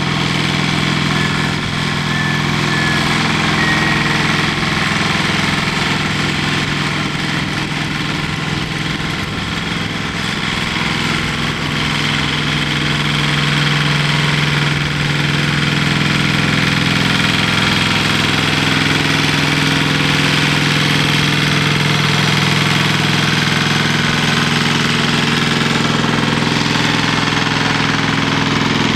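Diesel engine of a heavy-haulage lorry running steadily at low revs while it pulls a multi-axle low-loader trailer slowly along, getting a little louder about halfway through.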